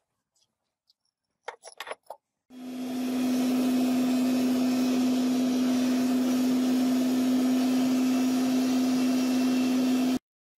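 Homemade forge running with forced air: a steady rushing whir with a strong low hum, starting abruptly about two and a half seconds in and cutting off just before the end. A few light knocks come just before it.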